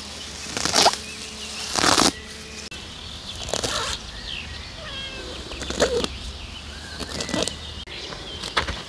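Grass being pulled up by hand, several short rustling rips of stems tearing out of the ground, each a second or two apart.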